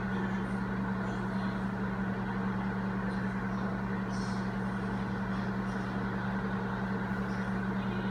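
Microwave oven running with a steady low hum, turning an egg on the turntable on its lowest power setting.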